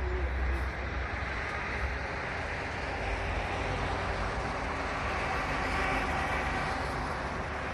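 Urban background noise: a steady rumble of passing vehicle traffic, a little louder past the middle.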